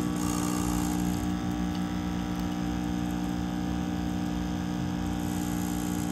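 Nespresso capsule coffee machine's pump buzzing steadily as it brews espresso; it starts suddenly and holds an even, low hum.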